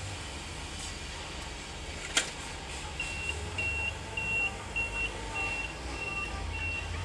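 Forklift reversing alarm: seven short high beeps at one pitch, about 0.6 s apart, starting about three seconds in, over a low steady engine rumble. A single short click comes a little after two seconds.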